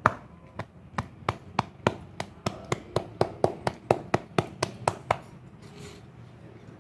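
A hand patting a dog's head and body: about twenty quick, sharp pats that speed up to about four a second, stopping about five seconds in.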